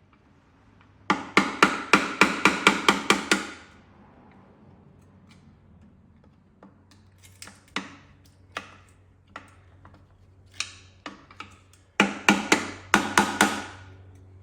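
Hammer blows on metal, working a tight, corroded transmission loose from the engine: two quick runs of about ten ringing strikes, about four a second, one early and one near the end, with scattered lighter taps between.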